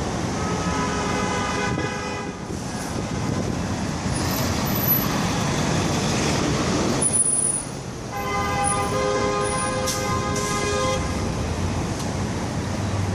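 Busy bus station din of bus engines and traffic noise. A steady vehicle horn sounds twice over it, briefly near the start and for about three seconds from about eight seconds in.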